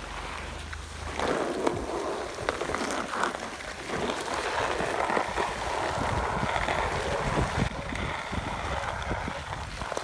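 Rushing, scraping noise of a sled being towed fast over snow behind a car, with wind buffeting the microphone; it swells about a second in.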